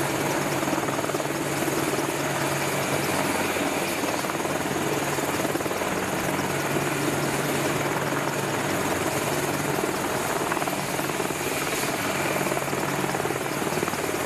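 Two AH-64 Apache helicopters running on a ship's flight deck, one landing and rolling forward while the other sits with rotors turning: a steady mix of rotor noise and turbine whine over a low hum.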